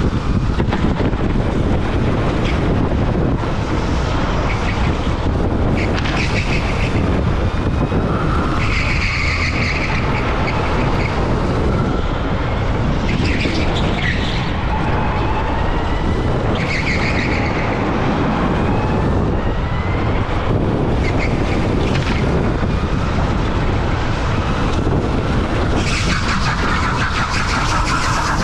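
Electric rental go-kart at speed, heard onboard: a steady low rumble under a faint motor whine that rises and falls with speed, and short tyre squeals every few seconds through the corners.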